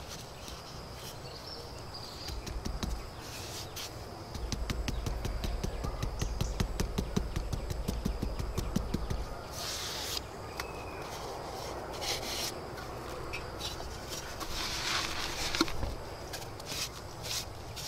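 Bricklaying by hand: quick light taps as hollow clay bricks are knocked down into wet mortar, then several short scraping rubs as mortar is spread and smoothed along the course.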